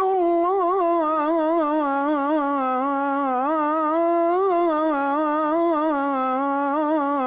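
A muezzin chanting the call to prayer (adhan): one long melismatic note held on 'rasūl' of 'ashhadu anna Muhammadan rasūlullāh', its pitch wavering in ornaments and dipping slightly in the middle.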